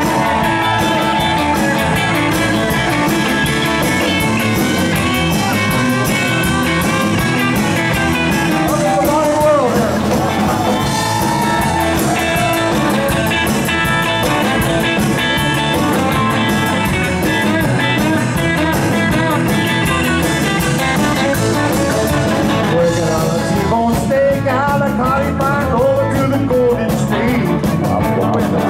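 A live band playing with electric guitars, acoustic guitar and drums, and men singing at times.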